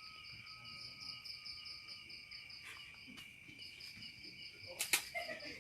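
Crickets chirping steadily in fast pulsing trills, with a fainter thin whine in the first half and one sharp click near the end.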